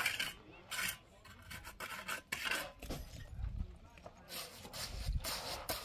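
A mason's trowel scraping and spreading cement in short, irregular strokes, about seven of them.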